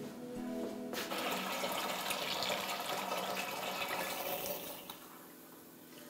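Milk pouring from an aluminium milk can through a cloth strainer: a steady splashing stream that starts about a second in and fades out near the end, with soft music underneath.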